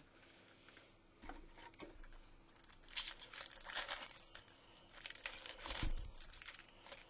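Foil wrapper of a trading-card pack being torn open and crinkled, in two bursts of crackling about three and five seconds in, with a soft thump near the end.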